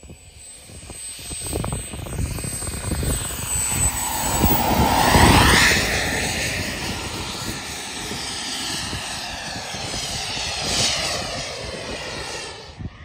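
Large-scale radio-controlled L-39 model jet with a JetMunt 210 turbine making a low fly-by: the turbine whine and jet rush build up, are loudest about five seconds in as it passes close, then drop in pitch and carry on more steadily as it climbs away.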